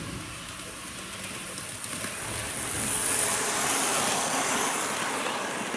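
HO-gauge model of a KiHa 58 diesel railcar running on the track past the camera: the motor and the wheels on the rails make a steady clattering run that grows louder, is loudest about three to four seconds in as the car goes by close up, then eases.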